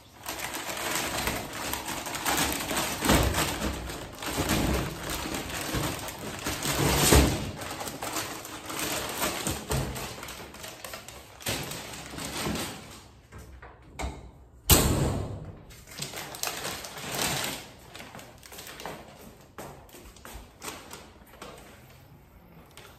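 Plastic-wrapped package being handled and dragged: crinkling plastic bag rustling, with scattered bumps and one loud thump about fifteen seconds in.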